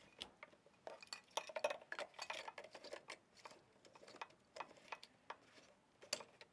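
Light, irregular clicks and small clattering from handling hard plastic parts as a battery is pushed into a PAPR blower unit and its end cap fitted.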